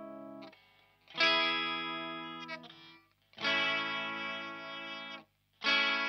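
Electric guitar, a Fender Rocky Stratocaster played through a THD Univalve valve amp with a KT88 tube into a Marshall Mode Four cabinet with Celestion G12-K100 speakers. A ringing strike dies away about half a second in. Then three new strikes follow, each left to ring and fade, and one is cut off short just before the last.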